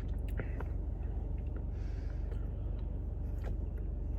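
Steady low hum in the background, with a few faint mouth clicks and a soft breath of someone chewing ice cream between words.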